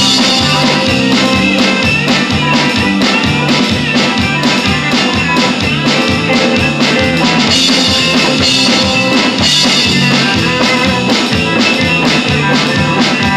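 Instrumental break of a rock-and-roll/country song: electric guitar over bass and drum kit with a steady beat.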